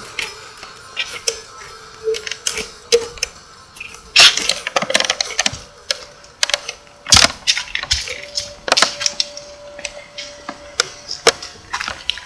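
Irregular sharp clicks and knocks, loudest about four and seven seconds in, with a faint steady tone joining in during the second half.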